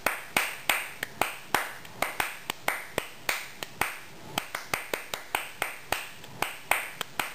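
A run of sharp hand claps, about four a second and unevenly spaced, each trailing off quickly.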